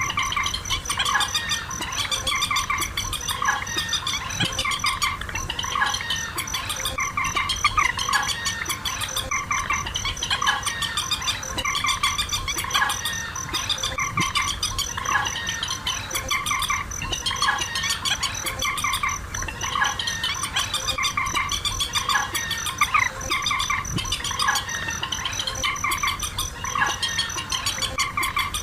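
Dense, repeating calls of rails, the waterhen and swamphen calls that Vietnamese bird netters use as lures, coming round every second or two in a loop. Under them runs a steady, high insect-like trill.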